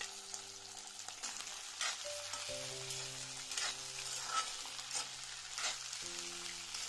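Ivy gourd (kunduli) frying in hot oil with cumin seeds in a wok: a steady sizzle, with a few sharp scrapes as it is stirred.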